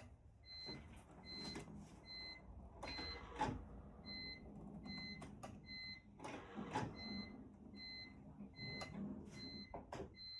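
Faint electronic beeping: a short high beep repeating about three times a second, with a few light knocks and rustles between.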